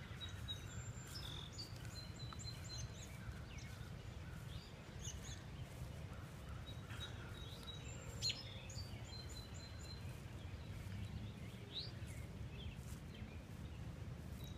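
Small birds chirping and calling in short, scattered notes over a steady low rumble.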